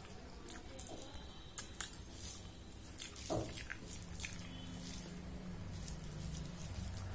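Wet squishing of cooked rice and potato curry mixed by hand on a stainless steel plate, with scattered short sharp clicks of fingers and food against the metal and of eating.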